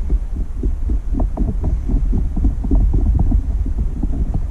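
Small, irregular clicks and taps of hand work on a carburetor, tools and small parts being handled, over a steady low rumble.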